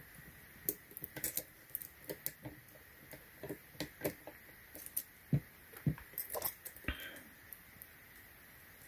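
Lock-pick and tension wrench working in the lock of a Club steering wheel lock: irregular small metal clicks, taps and rattles that die away near the end.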